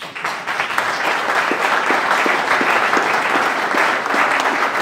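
Audience applause: many hands clapping together, breaking out suddenly and holding steady.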